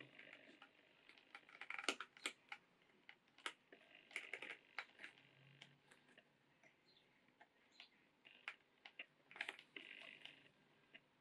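Faint, irregular clicks and short scratchy hisses of hand-stitching a leather knife sheath: a needle pushed through the stitch holes, thread drawn through, and the leather handled between stitches.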